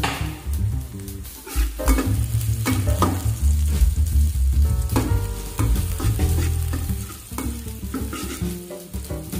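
Minced garlic sizzling in a metal wok while a steel ladle stirs it, scraping and knocking against the pan about once a second.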